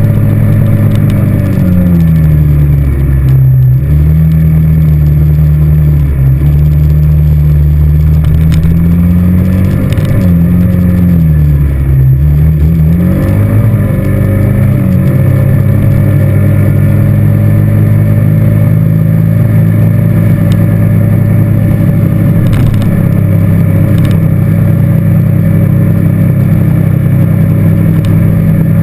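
ATV engine running under way. Its note drops and picks back up twice in the first half as the throttle eases and opens again, then holds steady at a cruising pace.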